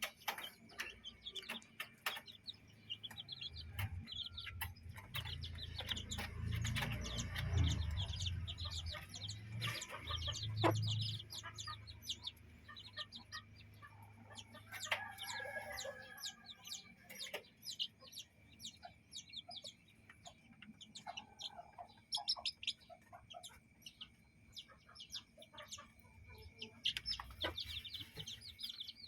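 Chickens clucking while chicks peep in many short, high chirps, with one longer hen call about halfway through. A low rumble runs under the first third.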